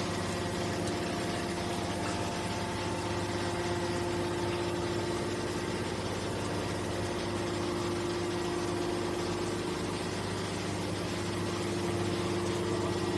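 Heavy machinery running steadily: a constant mechanical drone with a steady hum and no change in speed.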